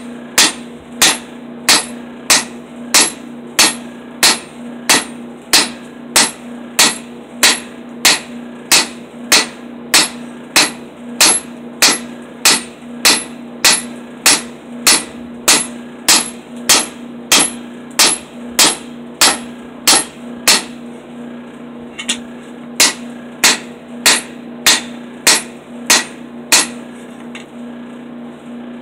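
Hand hammer forging a red-hot steel cleaver blank on the anvil of a bench vise: sharp metal-on-metal blows at a steady two a second. After a short break about two-thirds of the way through, the blows resume, then thin out near the end. A steady low hum runs underneath.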